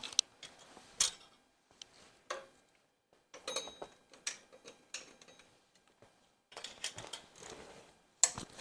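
Metal hand tools and bolts clinking and tapping against engine parts during a teardown: irregular sharp clicks and short clusters of clatter, some ringing briefly, with quiet gaps between them.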